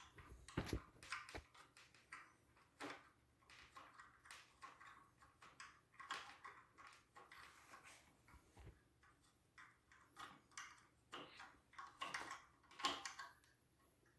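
Faint handling noises: scattered light clicks and knocks as the removable scroll piece and other parts of a wooden travel double bass are handled.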